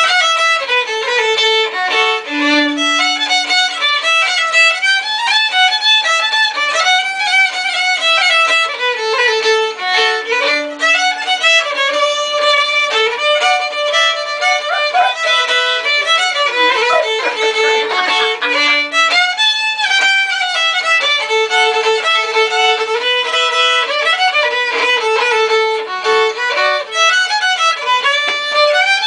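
A solo violin played with a bow, a tune of moving and held notes played without a break, with the same phrase coming back about every eight seconds.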